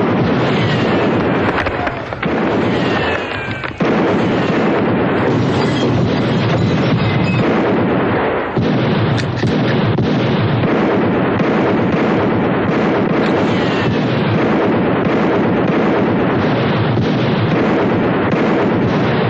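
Heavy, continuous gunfire from revolvers and rifles mixed with a shouting mob, dense and loud, easing briefly a few times in the first eight or nine seconds.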